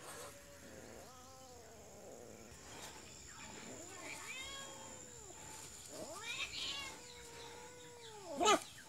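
Cat yowling at a puppy in a string of drawn-out calls that rise and fall in pitch, with a short, sharp, louder cry near the end.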